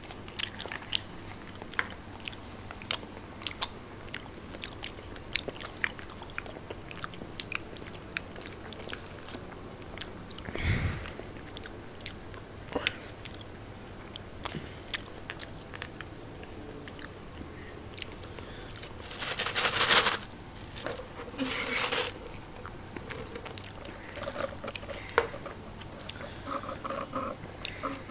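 Two people chewing and crunching fried snacks close to the microphone: many small crisp crunches and mouth clicks, with a dull thud about a third of the way in and a louder burst of noise about two-thirds in.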